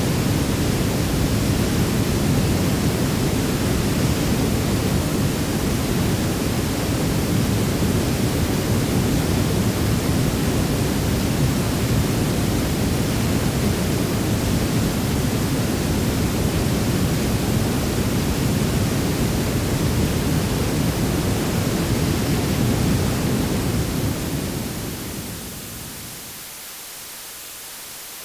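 River water rushing in a heavy, steady low rush. It fades out about 25 seconds in, leaving a faint hiss.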